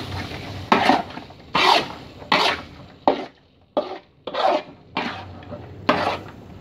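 Spatula scraping around the inside of a wok in repeated strokes, about eight of them, while stirring thick peanut sauce.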